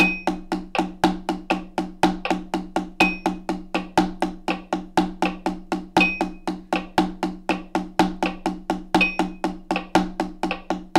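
Drumsticks playing accented paradiddles in triplets on a practice pad, an even run of sharp strokes at about four a second, over a metronome at 80 BPM whose higher beep marks the start of each bar every three seconds.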